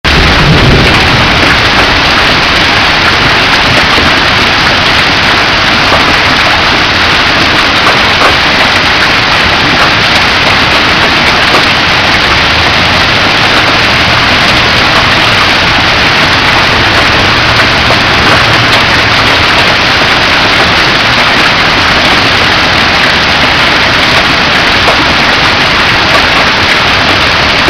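Heavy hail falling: a loud, steady roar of hailstones and rain striking the ground, grass and street. A vehicle drives by through it about halfway through, adding a low rumble.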